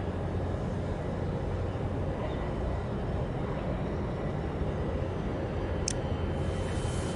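Steady low rumble of a large container ship under way close by, with a brief high click about six seconds in.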